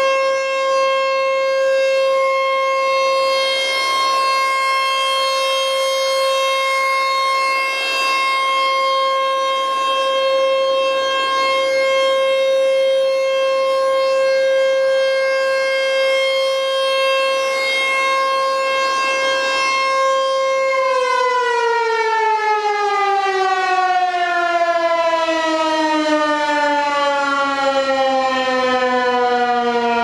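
Outdoor tornado warning siren with a rotating horn, sounding a steady wail at one pitch. About two-thirds of the way through it winds down, its pitch falling slowly and continuously.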